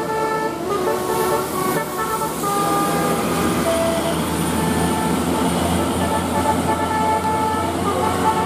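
Bus 'telolet' musical horn playing a tune of short stepped notes, several tones at a time, over the steady low running of the bus engine.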